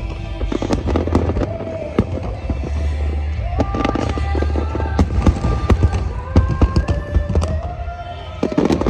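Fireworks shells bursting and crackling in rapid, irregular succession over music playing on loudspeakers, with a steady low rumble under the bursts.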